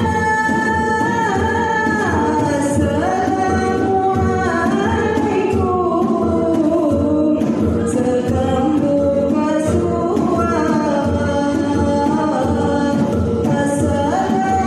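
Lampung gambus music: a sung melody with sliding, ornamented pitch over a steady beat.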